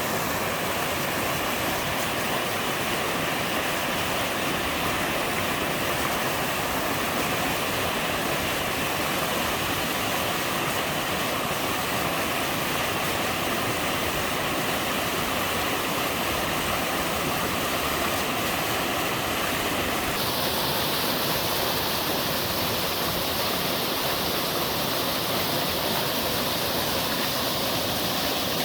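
Mountain stream pouring over twin sliding waterfalls: a steady, even rush of water. About twenty seconds in, the character of the rush changes abruptly.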